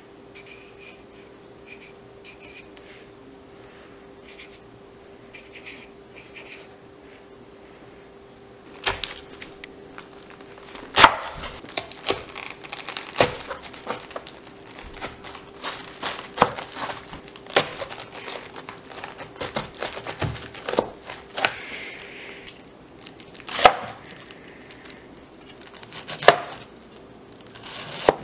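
A chef's knife cutting and shredding a head of green cabbage on a plastic cutting board: crunchy slices through the leaves and sharp, irregular knocks of the blade on the board, starting about nine seconds in. Before that there are only faint short scratches, like a marker writing on paper, over a faint steady hum.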